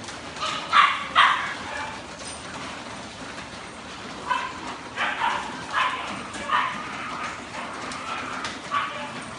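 Dogs barking in a group: short barks, three in the first second, then a scattered run of about six more between four and nine seconds in.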